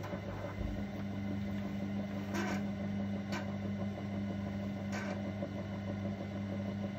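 Electric potter's wheel motor humming steadily as the wheel spins, with three short scraping noises from hands working the wet porcelain pot, about two, three and five seconds in.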